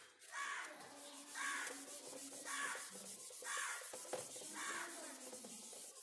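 Whiteboard duster rubbing marker writing off a whiteboard in repeated back-and-forth strokes, about one stroke a second.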